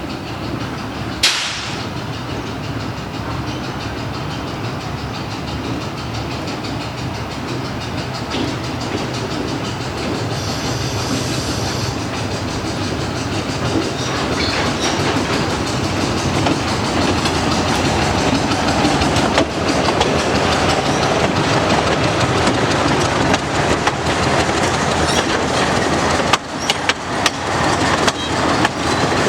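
TU2 narrow-gauge diesel locomotive running and drawing closer, its V12 diesel engine growing steadily louder, with a short sharp burst about a second in. Near the end its wheels click over the rail joints.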